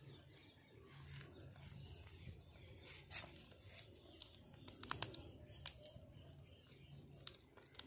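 A cat gnawing a leg bone: faint chewing broken by a handful of sharp crunches, the loudest a quick cluster about five seconds in.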